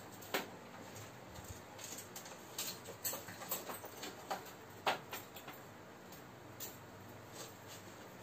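Nail clipper snipping excess plastic off an action-figure part: a run of irregular sharp clicks, roughly one every half second to a second.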